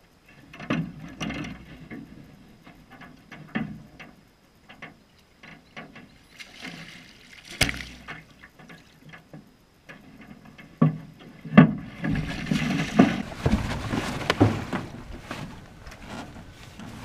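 A hooked largemouth bass thrashing and splashing at the surface as it is reeled to the side of a small boat, with a few sharp knocks on the boat. The splashing grows heavier and more continuous in the last few seconds as the fish is brought alongside.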